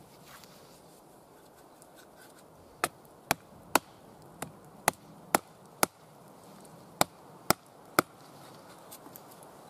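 Wooden baton striking the spine of a Fallkniven Idun knife to drive the blade through a log: about ten sharp wooden knocks at roughly two a second, beginning about three seconds in.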